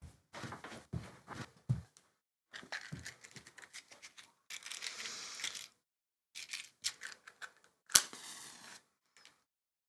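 A small cardboard matchbox being handled and opened, with matches rattling and rustling inside. Then a match is struck once with a sharp scrape and hisses briefly as it flares.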